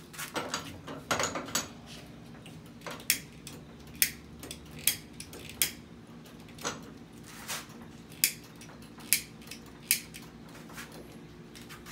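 Handheld lighter clicked over and over at a gas stove burner, sharp single clicks about once a second, with the burner failing to catch.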